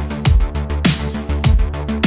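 Electronic outro music with a heavy beat: a deep kick drum that drops in pitch comes a little under twice a second over steady bass and synth chords.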